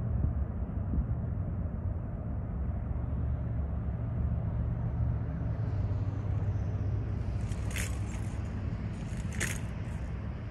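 An engine idling: a steady low rumble, with two short hisses about a second and a half apart near the end.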